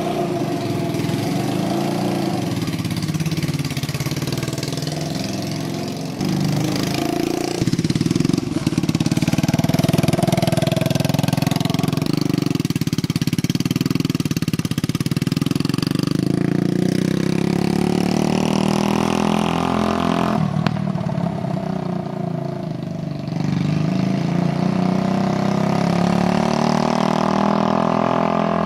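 150cc shifter kart engine running and revving up and down as the kart pulls away and drives off, its pitch rising and falling with throttle and gear changes. The engine is running super lean, which the builder says makes it backfire a lot and lack power.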